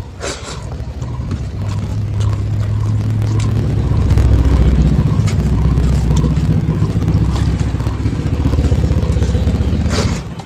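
A loud, steady low engine drone, like a motor vehicle running close by, swelling about four seconds in and falling away near the end, with small clicks over it.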